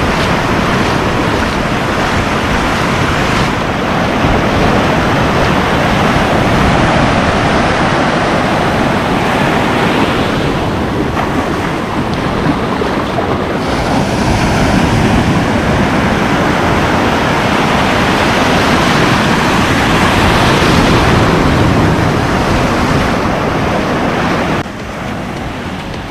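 Surf breaking on the beach, with wind buffeting the microphone; the rushing noise is steady and drops somewhat in level near the end.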